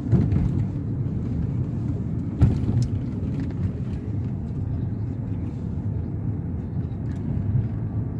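Car driving slowly, heard from inside the cabin: a steady low rumble of road and engine noise, with a single sharp knock about two and a half seconds in.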